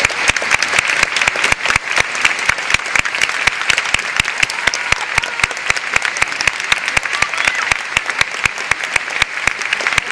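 Stadium crowd applauding, with many sharp individual claps standing out over a steady wash of clapping.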